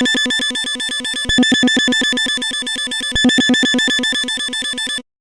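Electronic radar sound effect: rapid, even pulsing at about eight pulses a second over a steady high tone, with a louder pulse roughly every two seconds. It cuts off abruptly near the end.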